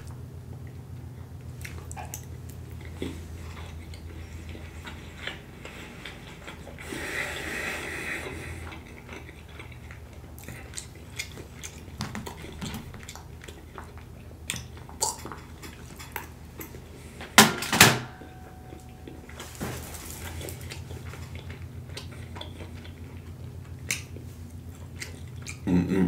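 Plastic fork clicking and scraping in a plastic takeout tub as food is scooped up, with soft chewing between, over a steady low hum. Two loud sharp knocks come a little past halfway.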